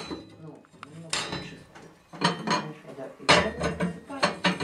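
Repeated metal clanks and scrapes at a stove being loaded and lit, as tools and fuel knock against its metal parts, in several separate clatters about a second apart.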